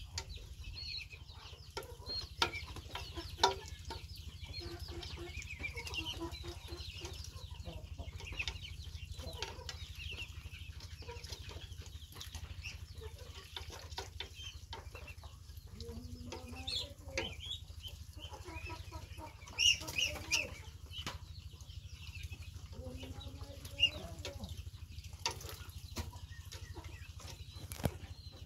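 Ducklings peeping while they feed from a metal pan, with the sharp ticks and knocks of their bills pecking against the pan. A few lower calls sound now and then.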